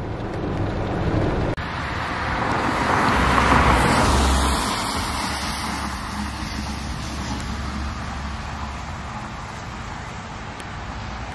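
A car driving on wet pavement: the hiss of its tyres with a low engine rumble swells to a peak a few seconds in, then slowly fades as it drives away.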